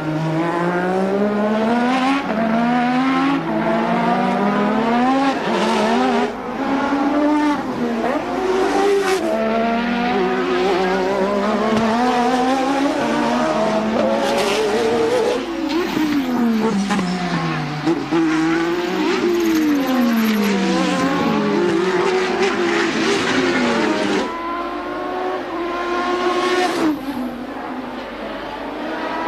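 1988 Formula One cars' engines at racing speed. Their pitch climbs through each gear and drops at the shifts, with several cars heard at once and some passing by.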